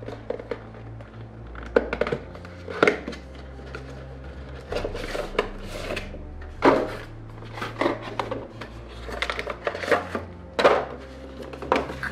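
A cardboard figure box and its clear plastic blister tray being handled and pulled apart: irregular clicks, taps and crinkles of plastic and card, with about a dozen sharper snaps.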